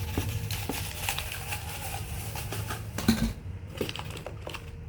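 Ceiling-fan parts and their packaging being handled: scattered clicks, rustles and light knocks, with one louder thump about three seconds in, over a steady low hum.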